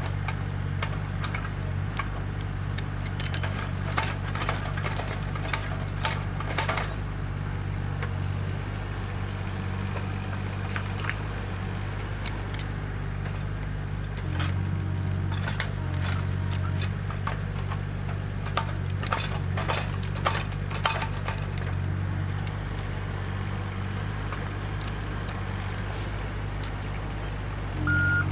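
A heavy vehicle's engine running steadily at low speed, with scattered clicks and snaps over it; the engine note shifts about halfway through.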